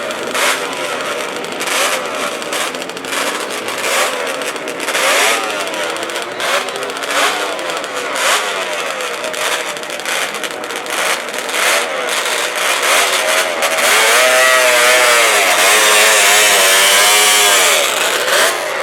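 Suzuki TR750 two-stroke triple racing engine revved repeatedly, the pitch rising and falling with each blip and sharp pops throughout. From about 13 seconds in it is held louder, the revs swinging up and down several times before dropping back.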